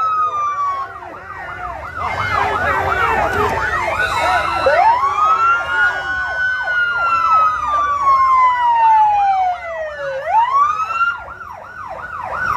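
Two police sirens sounding together: one on a fast yelp, about three quick rise-and-fall cycles a second, the other on a slow wail that climbs about five seconds in and then sinks gradually before climbing again near the end.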